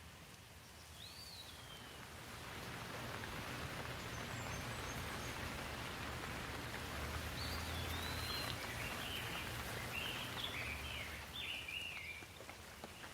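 Steady rain hiss that swells after about two seconds and eases near the end, with birds chirping: a single chirp about a second in and a quick run of chirps near the end.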